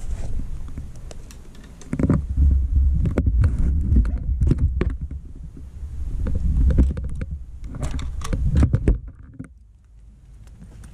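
Handling noise from an action camera being moved and repositioned: irregular low rumbling and rubbing with many scattered clicks and knocks, settling quieter near the end once the camera is still.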